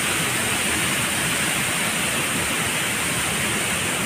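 Wide curtain waterfall pouring over a rock ledge into a pool: a steady, unbroken rush of falling water.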